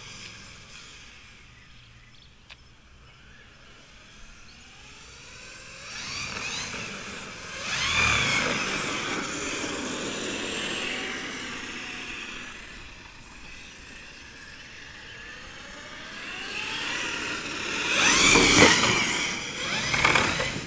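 Cen Colossus 1/6-scale electric RC monster truck with a Poseidon 1717 brushless motor on 6S, its motor whining up and down in pitch as it accelerates and slows on the asphalt. It swells loud as it passes close about eight seconds in, and again louder near the end.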